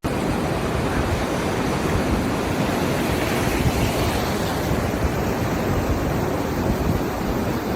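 A steady, loud rushing noise with no distinct events.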